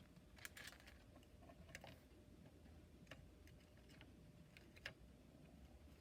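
Near silence broken by about half a dozen faint, scattered clicks and taps of tools working on a pedal's circuit board during desoldering, the sharpest about five seconds in.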